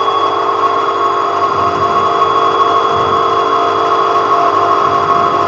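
Three-phase synchronous motor running unexcited, as an induction motor below synchronous speed: a steady electrical hum and whine made of several constant tones.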